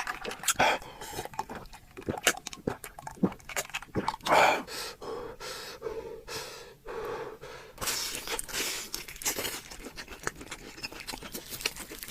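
Close-miked eating: many short, sharp crunches and chewing clicks, with heavy breaths through the mouth about four seconds in and again around eight seconds.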